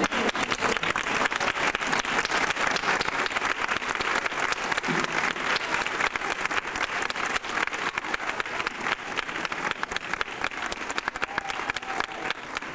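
Audience applauding: a dense, steady clatter of many hands clapping that eases off slightly near the end.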